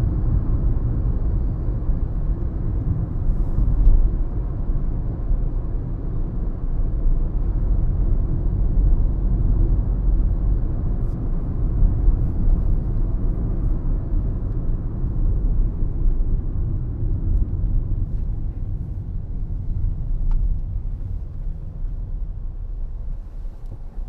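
Car driving, heard from inside the cabin: a steady low road and engine rumble that eases off somewhat near the end.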